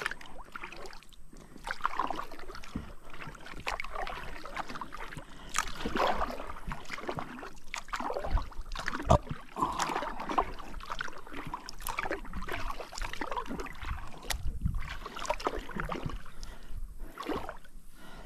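Water splashing and swishing around a kayak as it is paddled, in irregular strokes every second or two, with a few sharp knocks and low thumps.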